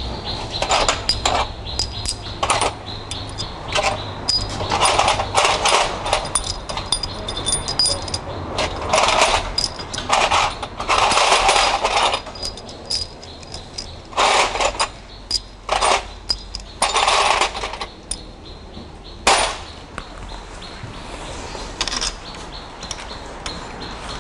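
Hand tools and metal engine parts clinking and scraping in irregular short bursts, busiest in the first three-quarters, with a sharp metal click late on.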